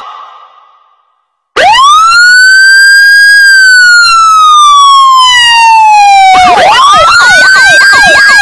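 Loud electronic police-style siren. About a second and a half in, one long wail rises, holds, then slowly falls. Fast up-and-down yelps then join a second rising wail, until it cuts off suddenly.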